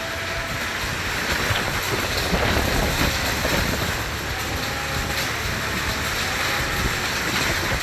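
Rain and wind in a thunderstorm, a steady rushing noise.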